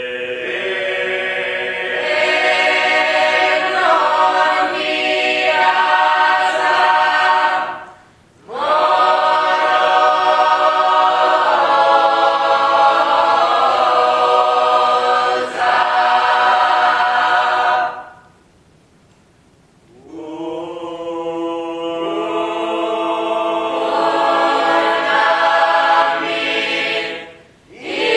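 Mixed-voice a cappella choir singing a Sardinian canto a concordu song in close polyphonic harmony, holding long chords. The phrases break off briefly about 8 seconds in, pause for about two seconds around two-thirds of the way through, and break again near the end.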